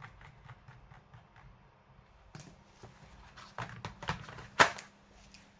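Small clicks and knocks from handling a laptop's plastic case: a run of faint, quick clicks, then several louder sharp knocks, the loudest a little past two-thirds of the way through.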